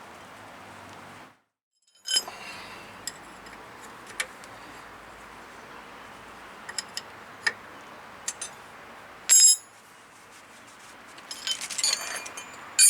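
Scattered light metallic clinks and taps of wrenches and brake caliper hardware as the caliper slide pins are threaded in, with a louder short clatter about nine seconds in and a quick run of clinks near the end. A brief gap of silence comes a little over a second in.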